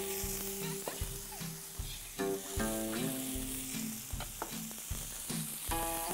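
Sliced brown mushrooms and browned pork pieces sizzling in hot oil in a frying pan, with background music.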